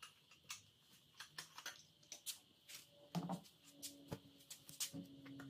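Faint workbench handling noise: scattered light clicks and taps with a couple of duller knocks, from a can of acetone and shop towels being picked up and handled. A faint low hum joins about two-thirds of the way through.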